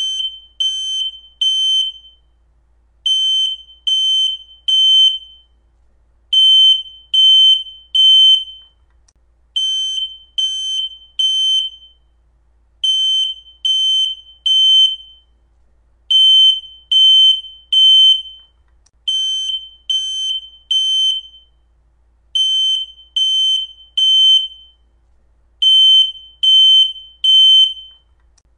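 Smoke alarm sounding its full alarm: loud, high-pitched beeps in groups of three, each group followed by a pause of about a second and a half, repeating about every three seconds. This is the temporal-three pattern that signals smoke or fire, not a low-battery chirp.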